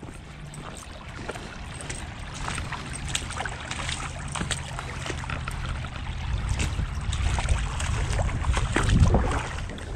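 Shallow slough water trickling and running out over a flooded dirt track, growing louder toward the end, with wind rumbling on the microphone.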